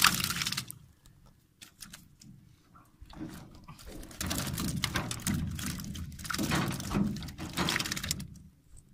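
Water splashing and pattering off a wire-mesh fish trap as it is shaken and lifted over a boat to empty out tilapia, with light knocks of the trap against the boat. The noise drops away about a second in, then comes back at about three seconds and stops just before the end.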